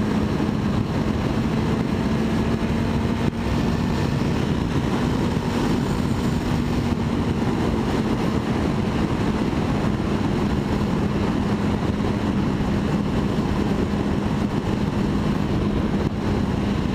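Honda Nighthawk 650's inline-four engine running at a steady cruise with one even note, under heavy wind rush over the helmet.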